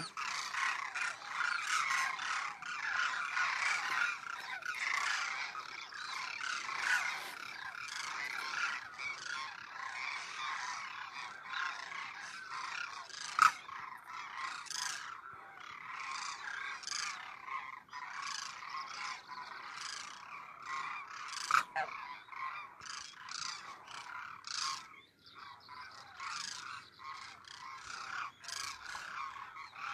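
A large flock of demoiselle cranes calling, a dense chorus of many overlapping calls without a break. Twice, about 13 and 21 seconds in, a short sharp click stands out louder than the chorus.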